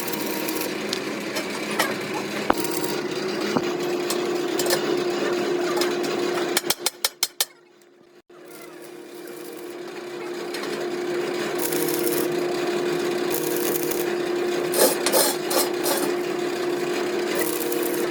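A motor-driven workshop machine running with a steady hum. Partway through it gives a quick run of clicks and drops almost to silence, then builds back up over several seconds to its earlier running level.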